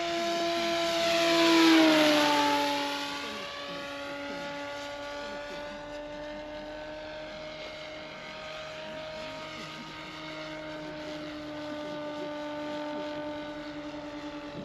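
Radio-controlled model Hawker Tempest's motor and propeller running steadily in flight, with a pitch drop as it passes close about two seconds in. It then keeps a steady, quieter drone as the model flies on.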